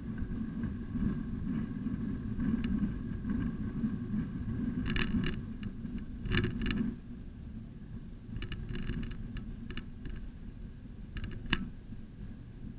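Low rumble of a moving bicycle picked up by its mounted camera, with short clicks and rattles from bumps. The rumble drops about seven seconds in.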